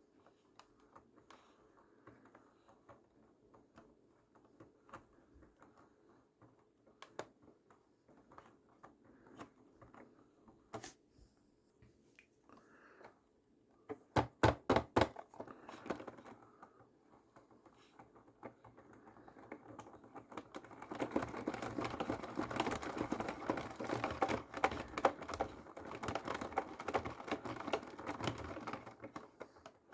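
A hard toy RC car knocking and clattering around inside a washing machine drum during a rinse and spin cycle. Scattered knocks come first, then a loud burst of rapid knocks about halfway through, and then dense, continuous rattling from about two-thirds of the way in.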